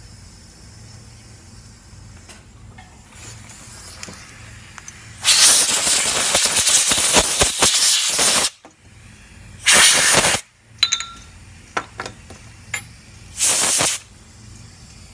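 Compressed-air blow gun blasting dirt off a Tecumseh snowblower carburetor: one long blast of about three seconds starting about five seconds in, then two short blasts.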